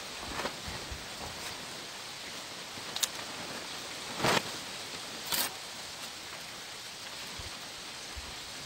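Steady outdoor background hiss with no clear source. Three brief, sharp clicks or knocks come about three, four and five and a half seconds in.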